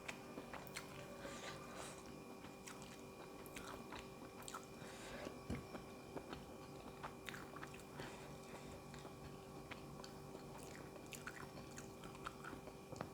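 A person quietly chewing and biting food, with faint crunches and small wet mouth clicks scattered throughout.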